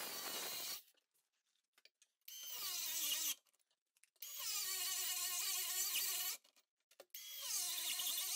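A drill with a 1-1/4 in diamond core bit plunge-cutting a faucet hole through a stone countertop. It runs in four short bursts of a steady whine, each dipping slightly in pitch as it starts, with silence between them.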